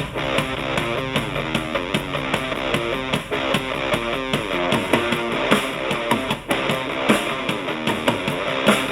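Guitar-driven alternative/punk rock music played back through a small portable Bluetooth speaker, with most of its sound in the lows and mids and little top end.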